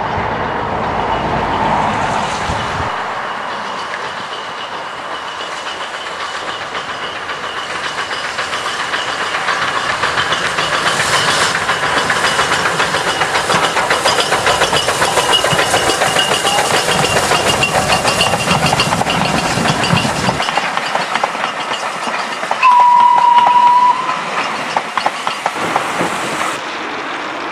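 GNR N2 class 0-6-2T steam tank engine working a passenger train past, its exhaust beats and wheels on the rails growing louder as it nears and passes. Then a single steady blast on a steam locomotive whistle about 23 s in, the loudest sound, lasting just over a second.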